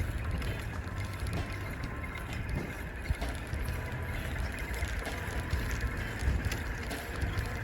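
Bicycle ridden along a dirt trail: a steady low rumble of tyres and wind on the microphone, with the rear freewheel ticking and a few short knocks and rattles over bumps.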